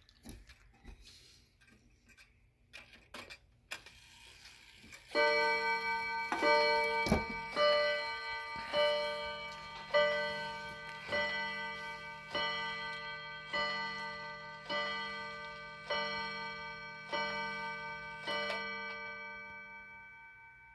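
Schoolhouse-style regulator wall clock with a 31-day movement striking twelve o'clock on its gong: twelve ringing strikes about a second and a quarter apart, starting about five seconds in, each ring fading before the next, the last dying away near the end. A few light clicks come first as the clock is handled.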